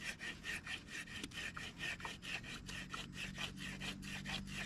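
Handsaw cutting through a dense black mangrove log in rapid, even back-and-forth strokes.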